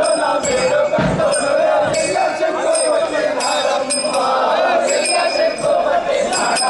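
Street procession din: crowd noise mixed with music. A wavering, held high melody line runs throughout, bright metallic jingles or small cymbal strikes come irregularly, and a few low drum thumps sound, one about a second in.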